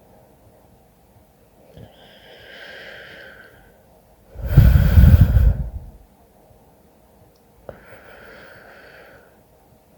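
A sleeping person snoring, with congestion from illness making it worse. One loud snore comes about four and a half seconds in, between two much quieter breaths.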